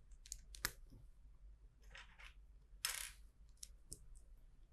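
Small plastic LEGO pieces clicking and clattering faintly as they are handled and picked from a pile, with a short, louder rattle about three seconds in.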